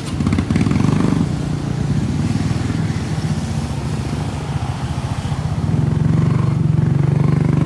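Motorcycle engine of a tricycle running under way, heard from the sidecar as a loud, steady engine hum that picks up sharply right at the start.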